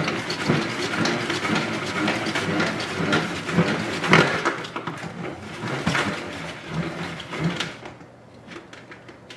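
Plastic salad spinner spinning wet lettuce leaves: a fast plastic whirring and rattling that winds down near the end, throwing the excess water off the leaves.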